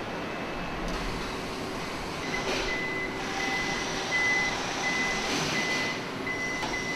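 Electronic warning beeper sounding a steady high beep about one and a half times a second, starting about two seconds in, over a steady hum of machinery.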